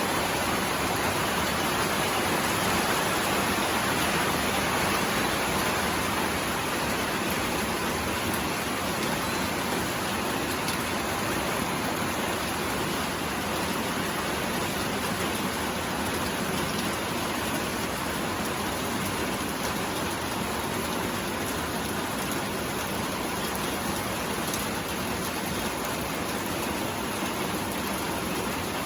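Steady rain falling on a roof, an even, unbroken hiss.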